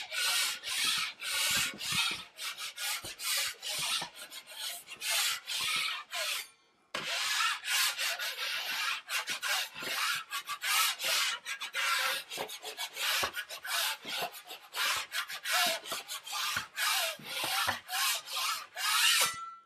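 Steel drywall taping knife scraping over screw heads coated with dried Durabond setting compound, to knock off any bubbles before the next coat. It is a run of short rasping strokes one after another, with a brief pause about a third of the way in.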